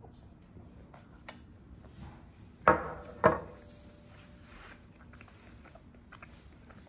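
A white ceramic bowl set down on a hard surface: two sharp knocks about half a second apart, the second leaving a short ringing tone.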